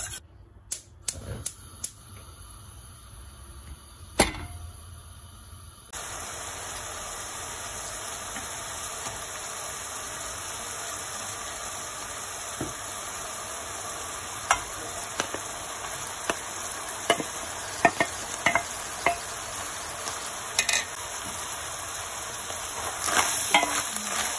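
Ground beef sizzling steadily as it browns in a stainless steel pan, with scattered sharp clicks of a spoon against the pan. For the first few seconds it is quieter, with only a few knocks. Near the end the sizzle grows louder as chopped onion is stirred in with a wooden spoon.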